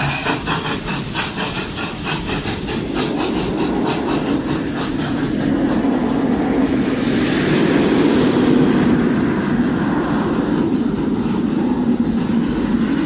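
Serengeti Express train moving off. Its wheels click rapidly and evenly over the rail joints, about four a second, for the first few seconds, then give way to a steady louder rumble, with faint thin wheel squeals near the end.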